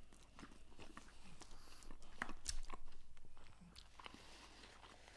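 Biting into a cheese-crusted burger bun and chewing it close to the microphone, with small crunching clicks.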